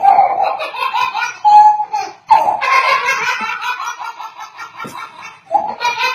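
A young child laughing and giggling in repeated high-pitched bursts, with a longer, louder stretch about two and a half seconds in.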